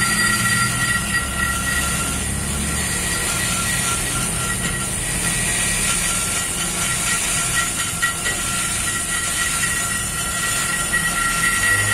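Handheld die grinder running steadily, its burr cutting into the aluminium port of a Suzuki GSX 150 cylinder head during porting and polishing: a steady high whine with a hiss over it.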